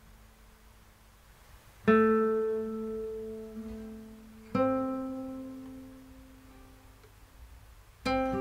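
Background guitar music: two chords struck and left to ring out, about two seconds in and again about four and a half seconds in, then a quicker run of plucked notes begins near the end.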